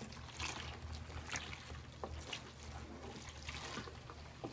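Water pouring in a steady stream from a kettle into a large pot of foamy liquid soap, splashing, while a wooden spoon stirs the mixture.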